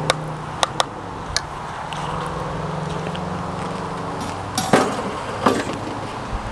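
A metal spoon clinks a few times against the side of a pot as mashed potatoes are stirred, over a steady low hum. Two louder knocks come near the end.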